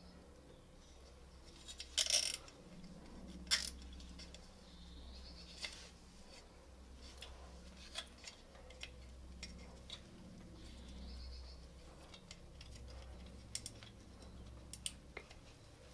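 Scattered small clicks and taps of plastic and metal parts as a turn-signal indicator and its wiring are fitted to a motorcycle license-plate holder bracket, the loudest clicks about 2 and 3.5 seconds in, over a low steady hum.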